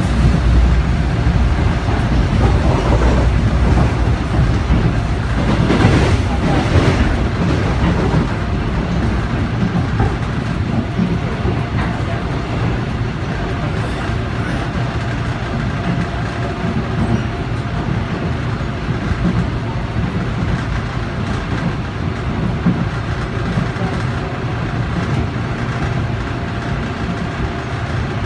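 Inside a Korail 3000-series electric train car in motion: a steady rumble of wheels and running gear with clickety-clack over the rail joints. The noise is a little louder in the first eight seconds or so and then eases slightly.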